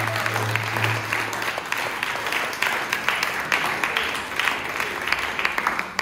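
Audience applauding with many hands clapping. A held low keyboard note sounds under it and stops about a second and a half in.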